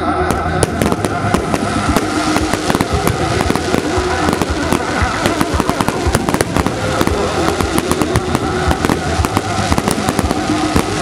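Fireworks display going off in quick succession: a dense run of cracks and bangs, several a second, with music playing underneath.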